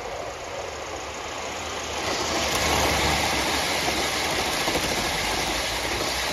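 Aster Gauge 1 live-steam LNER B1 locomotive and its coaches running past close by: a steady rush of wheels on the rails that grows louder about two seconds in as the coaches pass, then begins to ease near the end.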